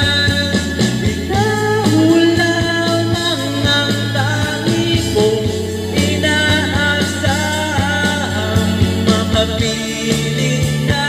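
A man singing into a microphone over amplified backing music with a steady beat.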